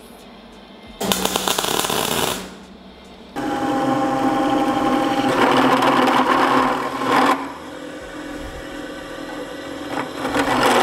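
A short burst of MIG welding crackle from a tack weld, then a drill press starts and its step drill bit cuts with a steady whine and grinding noise. The cutting is loudest in the middle, and the drill runs on more quietly near the end.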